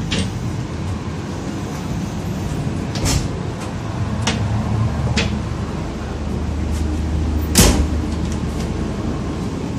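Connecting doors between passenger train carriages being opened and shut: a handful of sharp latch clicks and knocks, the loudest about three-quarters of the way through, over the steady low rumble of the train.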